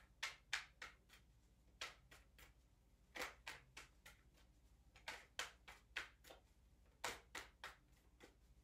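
Tarot deck being overhand-shuffled, hand to hand: soft card flicks in short runs of two to five, about three a second, with brief pauses between runs.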